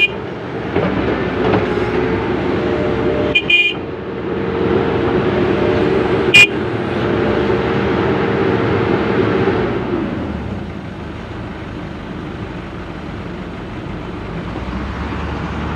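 Excavator's diesel engine and hydraulics running steadily under load, with short high horn toots about three and a half and six and a half seconds in. About ten seconds in the engine drops back to a lower, quieter run.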